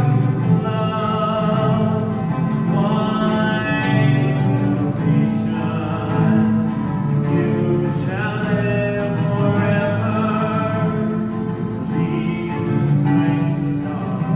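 A man singing a hymn, with his own guitar accompaniment.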